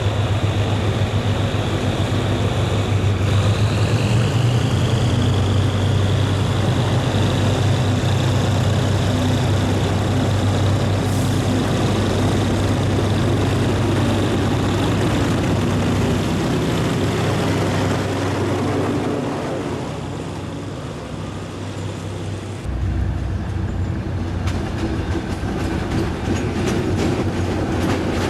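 General Electric UM12C diesel-electric locomotive with twin diesel engines working under load as it pulls a train out: a steady low engine drone, with a rising whine a few seconds in. Near the end the wheels click rhythmically over the rail joints as the coaches roll by.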